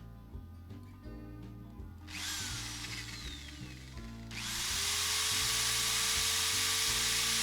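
Electric drill boring into the wooden side of an acoustic guitar for a preamp cutout: a short run about two seconds in, then the motor spins up and runs steadily under load from about four seconds in.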